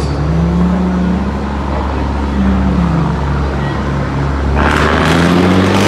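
DAF 95XF truck's inline-six diesel engine revving up and down several times as the truck drives past. About four and a half seconds in, a loud rushing noise joins and becomes the loudest sound.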